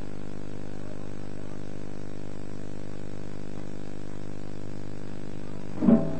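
Steady electrical mains hum and buzz, a dense stack of even tones at a constant level. Music starts abruptly near the end.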